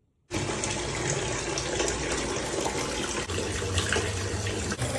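Steady rush of running water, as from a tap, starting abruptly about a third of a second in after silence, with a faint low hum underneath.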